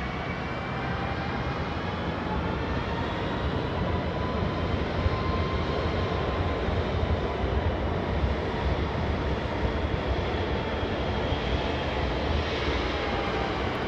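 Airbus A330 jet engines running close by: a steady loud rushing noise with several whining engine tones that drift slowly up and then down.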